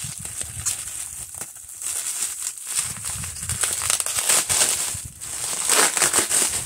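Clear plastic wrapping crinkling and crackling in irregular bursts as hands pull it open, loudest near the end.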